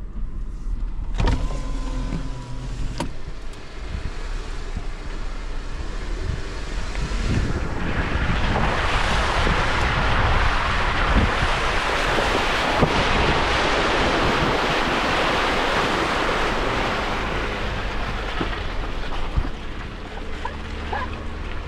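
Jeep driving through mud with its windows open, engine and drivetrain rumbling low. From about 8 seconds in to near 19 seconds, a long hissing swell of tyres churning through mud and water, with scattered knocks.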